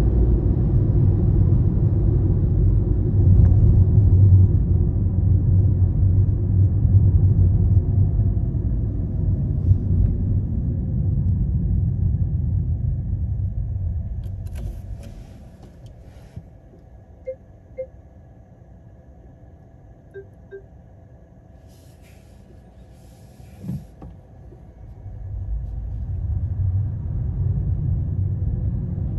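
Low road and engine rumble heard inside a car's cabin while driving. It dies down to a quiet hum for about ten seconds in the middle, where a few small blips and one thump are heard, then rises again as the car moves off.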